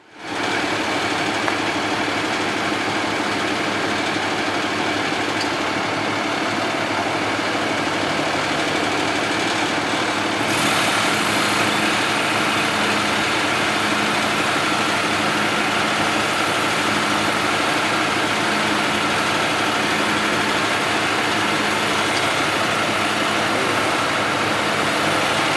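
An engine idling steadily, with a louder, brighter hiss added about ten seconds in.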